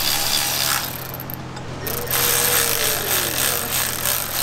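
Cordless electric ratchet running a bolt out or in on the engine, in two bursts: a short one at the start and a longer one from about two seconds in.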